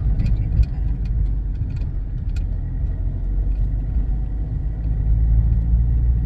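Steady low rumble of the campervan driving, heard inside the cabin: engine and road noise, with scattered small clicks and rattles.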